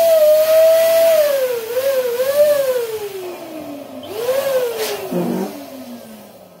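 Air escaping through the stretched neck of a latex balloon, making a high, wavering squeal that slides down in pitch as the balloon deflates. About four seconds in the pitch jumps back up, then falls again with a short rubbery crackle and fades near the end.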